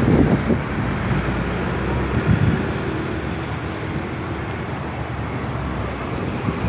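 City street ambience: a steady wash of passing traffic, with wind buffeting the microphone in low gusts.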